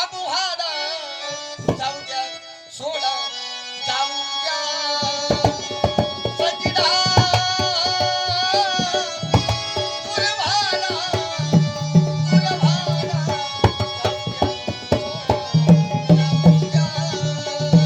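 Instrumental interlude of a Marathi folk song: a wavering melody line plays alone at first, then tabla-style hand drumming comes in about five seconds in and keeps a fast beat under it.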